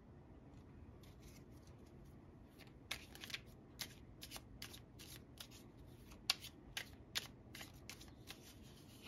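A tarot deck being shuffled by hand: a soft, irregular run of card clicks and slaps that begins about a second in and is thickest in the second half.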